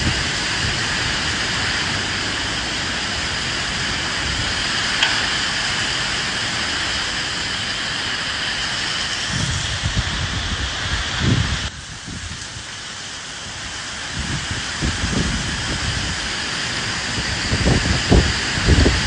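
Steady rain hiss with gusts of wind swelling low in several places. The sound drops abruptly about twelve seconds in, then builds back up.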